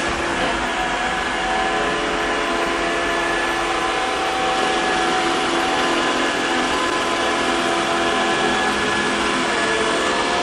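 iRobot Roomba 960 robot vacuum running: a steady motor whine with several held tones over a loud hiss.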